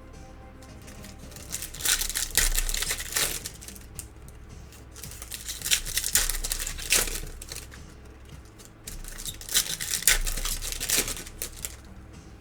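Foil trading-card pack wrappers crinkling as packs are handled and torn open, in three bouts of a couple of seconds each.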